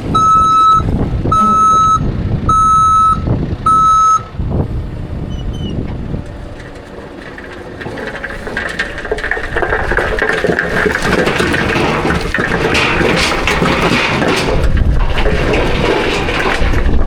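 Dump truck's reversing alarm beeping about once a second, stopping about four seconds in. It is followed by a heavy diesel engine running and growing louder.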